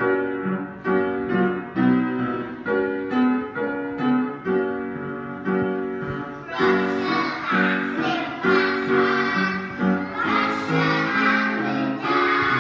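Piano accompaniment plays an introduction of evenly spaced notes. About six seconds in, a group of young children joins in singing over it.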